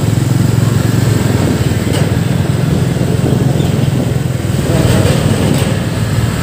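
Motorcycle engine droning steadily while riding in traffic.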